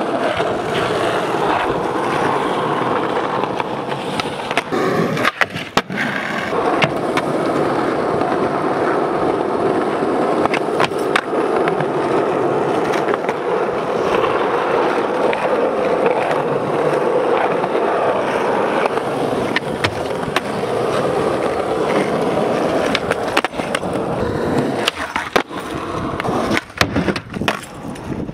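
Skateboard wheels rolling over rough, worn asphalt, a continuous rolling noise. It is broken by sharp clacks of the board popping and landing, with several close together near the end.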